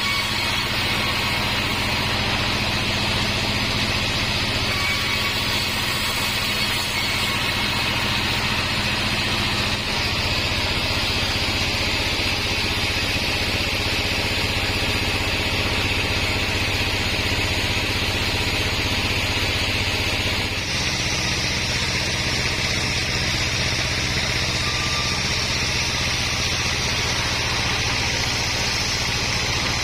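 A large band sawmill (a 36-inch bandsaw) runs steadily while sawing mahogany, with a constant motor hum and a hiss from the blade. About two-thirds of the way through, the hiss turns brighter and the hum shifts slightly.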